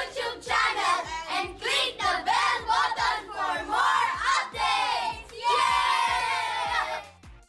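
A group of children's voices singing and shouting together over background music with a steady beat, ending on one long high note that cuts off just before the end.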